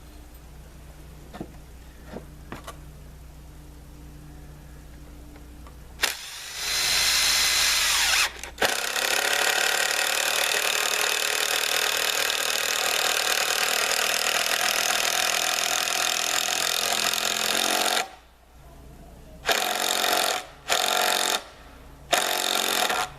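Impact driver running a bit: a short run about six seconds in, then one long steady run of about nine seconds, then several short bursts near the end.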